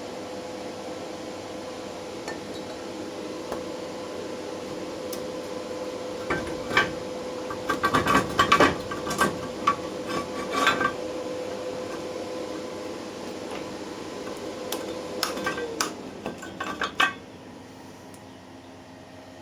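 Steel parts clanking and rattling in two spells of sharp metallic knocks, over the steady hum of the CNC plasma cutting machine, which stops a few seconds before the end.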